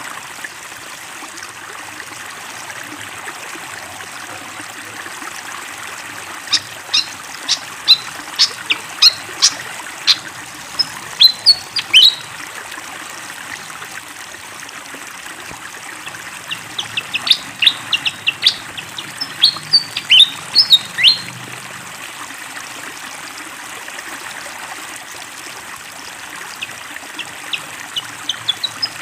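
Fantail (sikatan kipas) singing in two bursts of quick, sharp whistled notes, one about six seconds in and one about sixteen seconds in, over a steady rush of flowing water.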